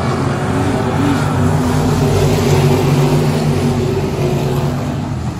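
IMCA stock cars racing past with their V8 engines running, the engine sound swelling to its loudest about halfway through and then easing off.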